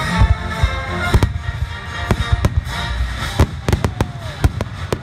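Aerial fireworks shells bursting in quick succession: a string of sharp bangs, coming faster after the first few seconds, with music playing underneath.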